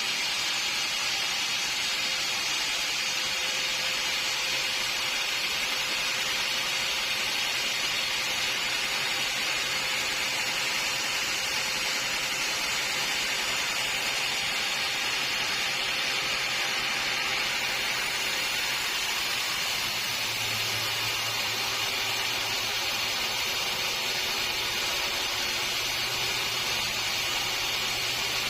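Sawmill saw running and cutting through a log: a steady hissing machine noise, with a low hum joining about two-thirds of the way in.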